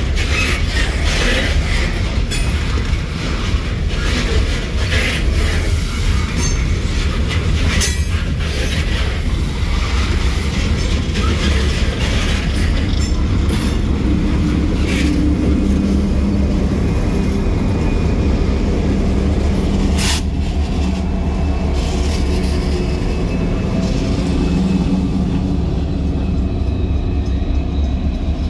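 Loaded coal train rolling past: a heavy, steady rumble of the cars with scattered wheel clicks over the rail joints. From about halfway a diesel locomotive's steady engine hum comes in under it as the locomotive draws near.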